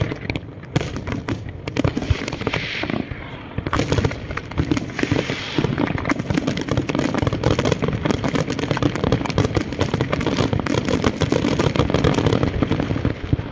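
Fireworks display: aerial shells bursting in a rapid, unbroken barrage of bangs and crackling.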